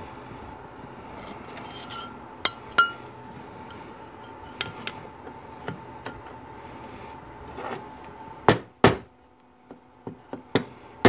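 Sharp metal clinks and knocks of a long steel tool working in the bore of an aluminium 4L60E transmission pump cover. A few come scattered, with two louder knocks about eight and a half seconds in and more just after. A steady hum underneath stops about eight seconds in.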